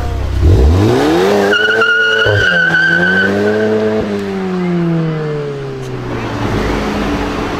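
Volkswagen Golf 7 GTI's turbocharged four-cylinder revving up hard, then tyres squealing for about two seconds as it powers through a corner. After that the engine note falls steadily as the driver eases off.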